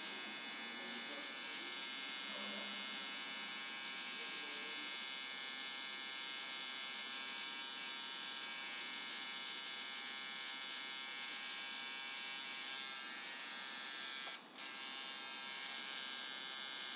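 Electric tattoo machine buzzing steadily, cutting out for a split second near the end.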